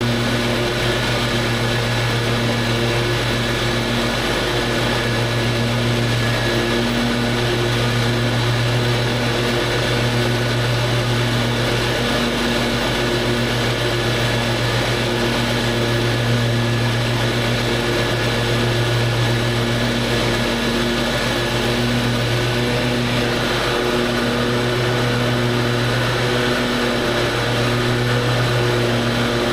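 Lawn mower engine running steadily while mowing, its even hum wavering slightly now and then.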